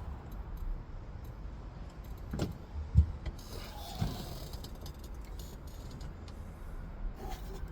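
Hands working on parts and tools: small clicks and clinks, a single sharp thud about three seconds in, and a brief rustle just after it.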